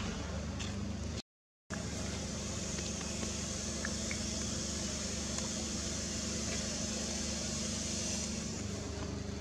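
Steady outdoor background noise: an even hiss over a low hum, cutting out to silence for half a second about a second in.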